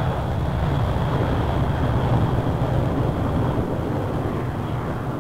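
Steady low rumble of the Vickers Valiant's four Rolls-Royce Avon jet engines as the bomber rolls along the runway, heard on an old 1950s film soundtrack.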